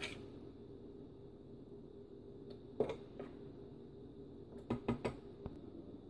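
Metal spoon scraping and tapping against a plastic mini food-processor bowl of chopped onion and tomato: a few light knocks, then a quick cluster of clicks about five seconds in as the bowl is lifted from its base, over a steady faint hum.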